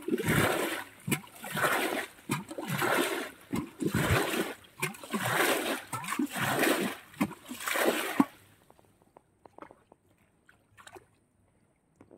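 Pond water splashing in repeated strokes, about one a second, stopping abruptly about eight seconds in. A few faint clicks follow.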